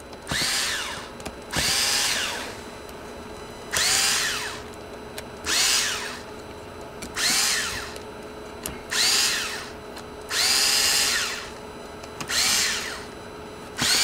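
Small power drill-driver running in about eight short bursts, each spinning up and winding down, as it starts screws a thread or two into a rifle's top plate.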